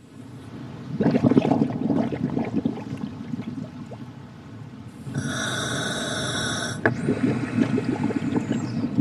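Scuba regulator breathing underwater: a diver's exhaled bubbles gurgle out in a long burst, then a steady hiss comes through the regulator for about a second and a half around the middle, and the bubbling starts again.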